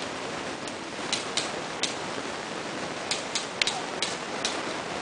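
Airsoft pistols firing: about a dozen sharp, irregular pops, bunched between about one and four seconds in, over a steady hiss.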